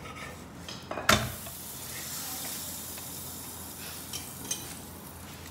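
Large stuffed paratha flipped on a hot tawa with a spatula: one sharp knock about a second in as it turns over, then a steady sizzle as the butter-brushed side fries on the high flame.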